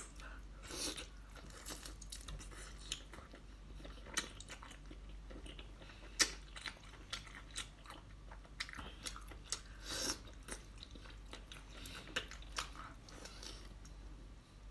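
A person eating a whole cooked octopus, biting and chewing its rubbery tentacles, with scattered sharp mouth clicks and smacks, the loudest about six seconds in.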